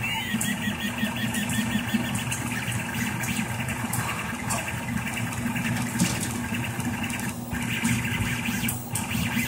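Rostock MAX delta 3D printer running a print: its stepper motors whine in shifting pitches as the print head moves quickly, over the steady hum of its cooling fans.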